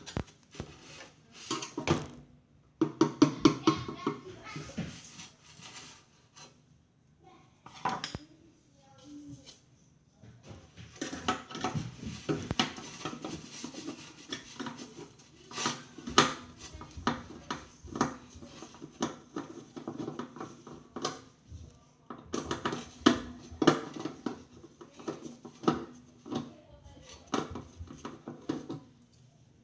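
Irregular clicks, knocks and light clatter of hard metal and plastic parts being handled, in clusters with short pauses between.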